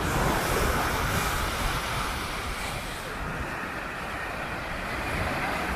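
Wind buffeting the microphone in gusts over a steady rush of noise.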